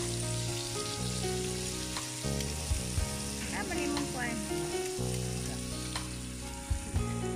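Strips of pork belly sizzling steadily as they fry in an electric skillet, with a few short clicks of tongs against the pan around three seconds in and near the end.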